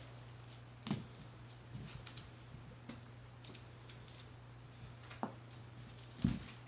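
Kittens scuffling and pouncing on a rug: irregular soft thumps and taps of paws on the floor, loudest about a second in and near the end, over a steady low hum.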